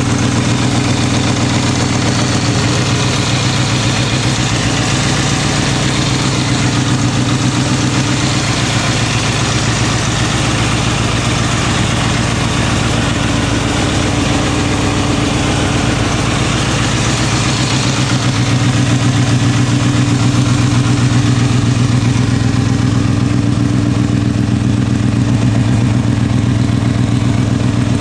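Kawasaki Balius 250cc inline-four motorcycle engine idling steadily through an aftermarket OVER silencer, a little louder in the last third.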